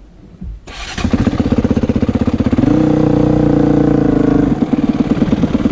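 Honda CRF450X's single-cylinder four-stroke engine starting up about a second in, then running under throttle as the bike pulls away, the revs held steady for a couple of seconds before easing back.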